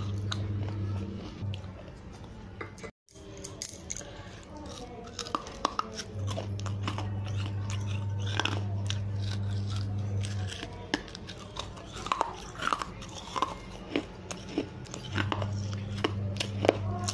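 Baked-clay pot shard coated in white chalk paste being bitten and chewed: irregular sharp crunches and clicks, thickest in the second half. A low steady hum comes and goes, and the sound cuts out for an instant about three seconds in.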